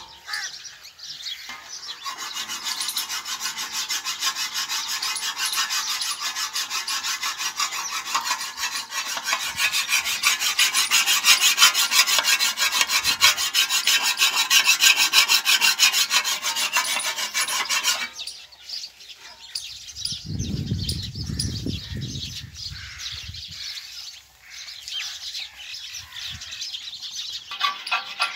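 Fast, evenly repeated metal-on-metal rasping at the cutting blade of a wheel-type chaff cutter (toka). It stops abruptly about eighteen seconds in. After that come quieter, intermittent scraping and a brief low rumble.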